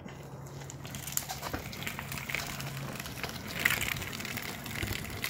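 Kick scooter with a 3D-printed rear wheel rolling over concrete: a steady rolling rumble with scattered small clicks and scuffs, and a low hum that fades out about three seconds in.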